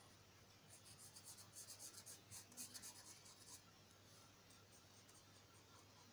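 Faint scratching of a marker pen's tip drawn across paper in a quick run of short strokes, busiest in the first half and trailing off after about three and a half seconds, over a steady low hum.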